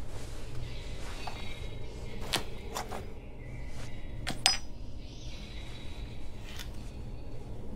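Soft rustling of a doll's satin dress being handled, over a steady low hum. A few small clicks come near the middle, and one brighter clink rings briefly about four and a half seconds in.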